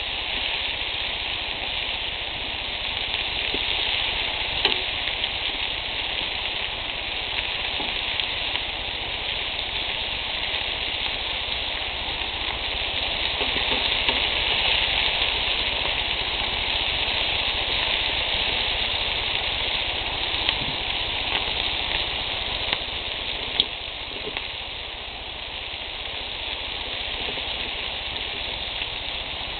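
Bacon-wrapped quail breasts sizzling on a grill: a steady frying hiss of rendering bacon fat, broken by a few sharp pops.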